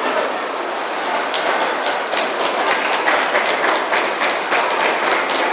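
Spectators applauding: a dense patter of many hands clapping that starts about a second in and thickens.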